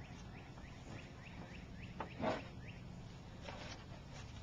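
Chickens calling: a quick run of short, high, rising chirps, then one louder call a little over two seconds in and a fainter one near the end.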